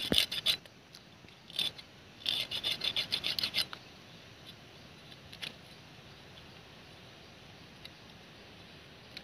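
Knife blade scraping the scales off a black pomfret in quick strokes: a short run at the start, a brief one about a second and a half in, and a longer run of about a dozen fast strokes from about two to three and a half seconds in, then only a few faint clicks.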